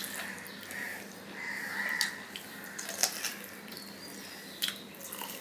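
Close-up chewing and wet mouth sounds of a person eating rice and curry by hand, with a few sharp clicks scattered through, about three seconds in and again near the end.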